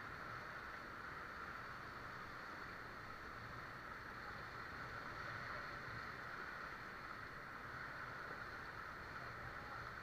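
Steady rushing of river rapids around a drifting inflatable raft, an even wash of moving water with no strokes or splashes standing out.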